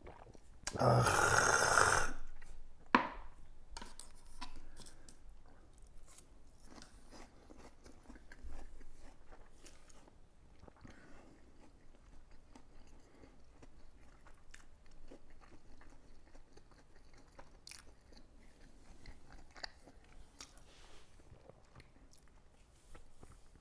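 A person chewing food, with faint crunching and small clicks. A loud rush of noise lasting about a second comes near the start, and a sharp click follows about three seconds in.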